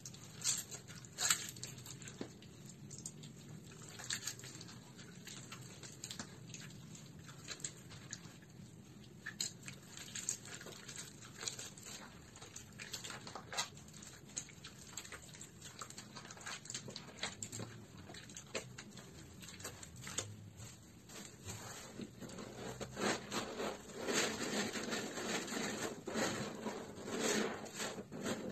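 Hands squeezing and crumbling soft, water-soaked bar soap in water: irregular wet squishing and crackling. It grows louder and denser over the last several seconds.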